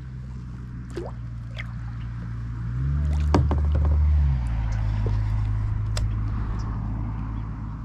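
Low, steady engine hum that grows louder and briefly rises in pitch about three seconds in, then settles back, with a few light clicks and knocks over it.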